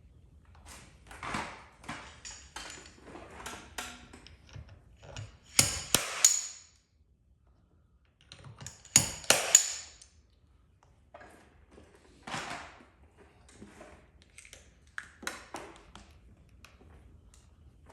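Paintless dent repair tool work on a vehicle body panel: a series of sharp metallic taps and clicks, loudest in two clusters about six and nine seconds in.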